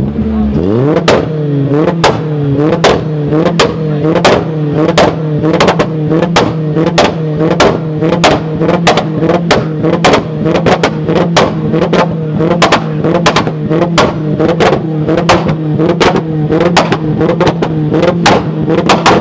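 Car engine held at high revs, bouncing between revs with sharp cracks about two to three times a second.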